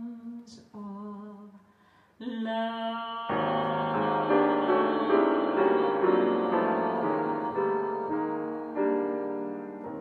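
A woman's voice holds soft notes with vibrato. About three seconds in, chords on a Yamaha grand piano come in loudly, and a last chord struck near the end is left to ring and fade.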